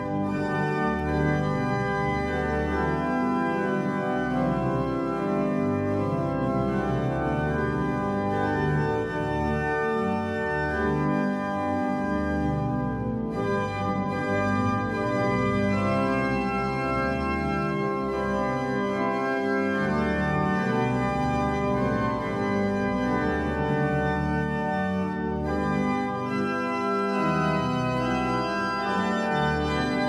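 Pipe organ playing a piece in full, sustained chords, with low pedal bass notes under changing harmonies, played from the manuals and the pedalboard.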